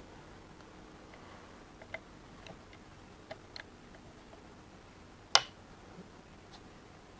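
A ratchet with a 4 mm hex bit loosening a motorcycle brake lever's pivot pin: scattered, irregular metal clicks. One much sharper, louder click comes about five seconds in.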